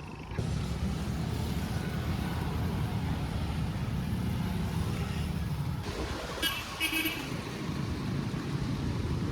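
Steady low rumble of vehicle traffic or a car on the road, with two short high-pitched sounds about two-thirds of the way through.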